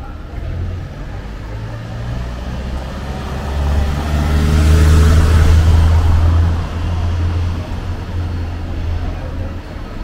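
A motor vehicle's engine running close by as it passes, a low drone that builds to its loudest about halfway through and then eases off, over general street noise.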